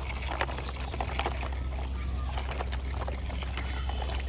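Muddy water sloshing and splashing around the wheels of a plastic toy dump truck being towed through a puddle, with a steady low rumble underneath.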